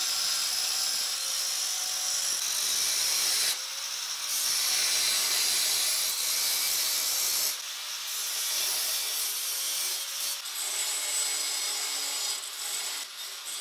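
Angle grinder disc biting into the steel plate of a helmet visor: a steady, high hissing grind that dips briefly twice as the tool shifts to a new cut.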